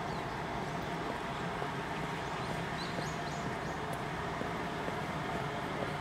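Outdoor street ambience: a steady hum of traffic, with a few short, high bird chirps around the middle.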